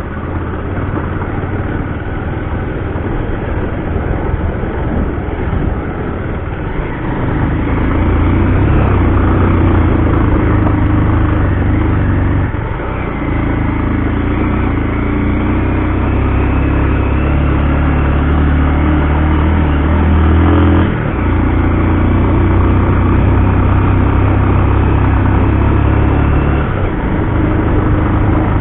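Motorcycle engine running on the move. It grows louder about a quarter of the way in, its note breaks briefly twice and shifts again near the end.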